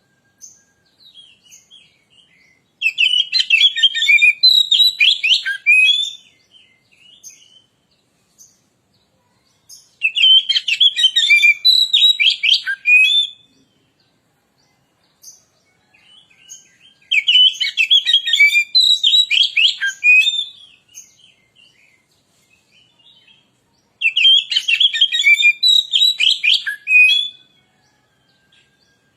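Oriental magpie-robin singing in loud bursts of rapid, varied whistles and chirps: four phrases of about three seconds each, separated by pauses of a few seconds with only scattered soft notes.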